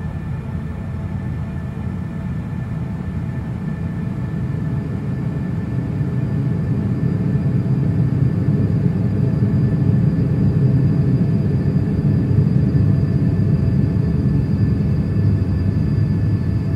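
Ambient drone re-composed from street field recordings: a dense low rumble that slowly swells louder over the first half and then holds, with faint steady high tones above it.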